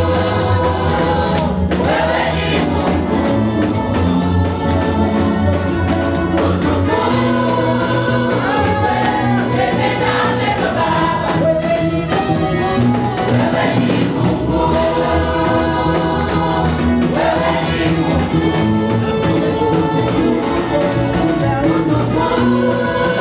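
A mixed choir of men and women singing a Swahili gospel praise song together through microphones, with a steady instrumental bass backing, loud and continuous.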